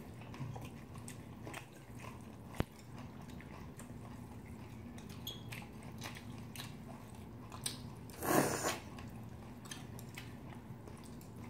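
Soft, close-miked chewing and small mouth clicks of people eating cold buckwheat noodles, with one sharp click about two and a half seconds in and a louder half-second burst of noise about eight seconds in.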